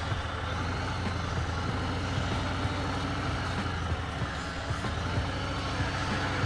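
Harley-Davidson motorcycle's V-twin engine running steadily, with an uneven low pulsing beat.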